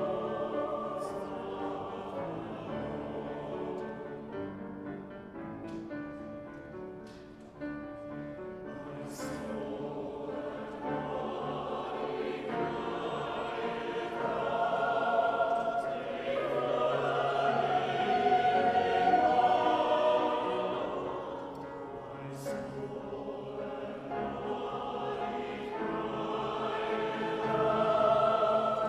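Background choral music: a choir singing sustained chords, swelling louder in the middle and again near the end.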